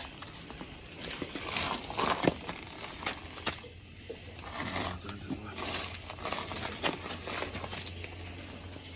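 Rustling and scattered light clicks from a handheld camera being handled, over a faint steady low hum.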